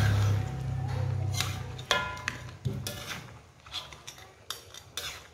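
Metal spatula scraping and clanking against a large aluminium wok as crab, corn and tofu in sauce are stirred and tossed, a dozen or so knocks, one about two seconds in ringing brightly. A low hum runs under the first half.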